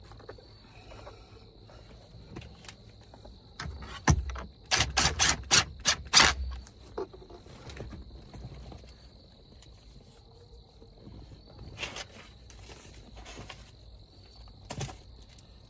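A quick run of sharp clicks and knocks, about six in two seconds, then a few single knocks, as hard plastic interior trim and a light housing are handled and pressed into place. A faint steady high-pitched tone runs underneath.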